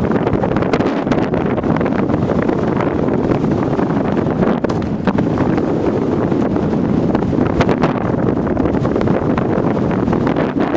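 Strong wind blowing on the microphone: a steady, loud rushing, with scattered sharp ticks throughout.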